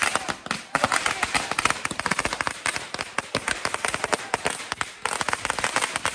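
Firecrackers crackling in a dense, irregular run of sharp cracks, several a second.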